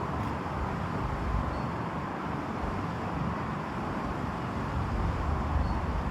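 Steady road traffic noise with wind buffeting the microphone as a low, uneven rumble.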